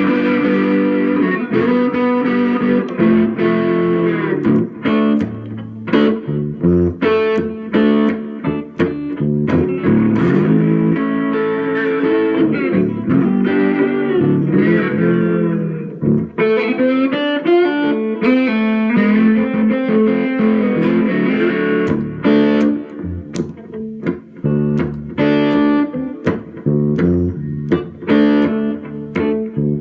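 Guitar played with a bottle slide, its notes gliding up and down into one another between picked notes.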